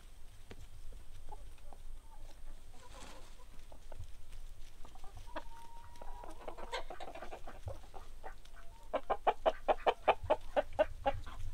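Chickens clucking: scattered short calls and a brief held note, then, about nine seconds in, a loud rapid run of clucks at about five a second.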